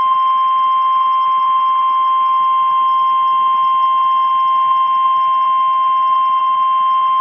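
NOAA Weather Radio 1050 Hz warning alarm tone: one loud, steady, single-pitch beep held without a break. It signals that a new weather warning is about to be broadcast.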